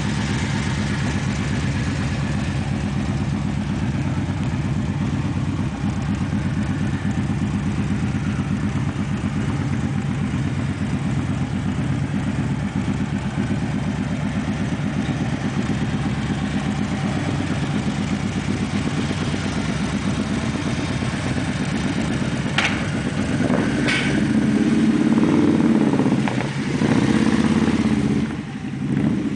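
Harley-Davidson V-twin motorcycle with a sidecar idling with a steady, even pulse. About 22 seconds in come two sharp knocks, then the engine runs louder for a few seconds as the outfit moves off.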